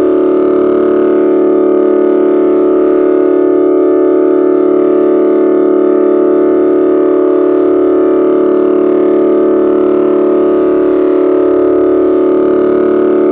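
4ormulator v2 electronic sound effect: a thick, steady drone of several close pitches sounding together, held loud and unchanging throughout.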